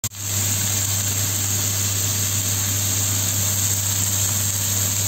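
Marinated lamb chops sizzling on a hot ridged cast-iron grill pan: a steady loud hiss, with a steady low hum underneath.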